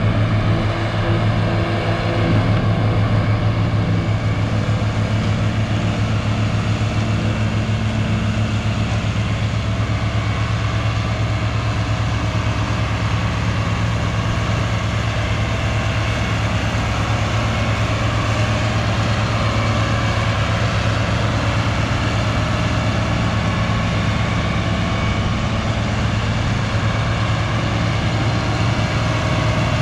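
Farm tractor's diesel engine running at a steady speed, a loud, even drone with no change in pitch.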